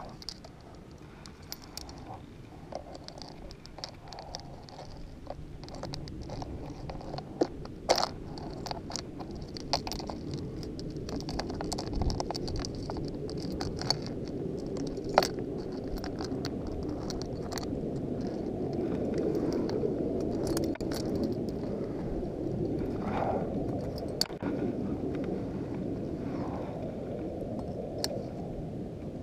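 Wind rumbling on the GoPro microphone, growing louder past the middle, with scattered sharp clicks and clinks of climbing gear (cams and carabiners) and scraping against rock.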